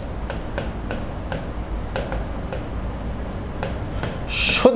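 Pen scratching and rubbing on a writing board in short, irregular strokes, with small taps between them, as words are written out by hand.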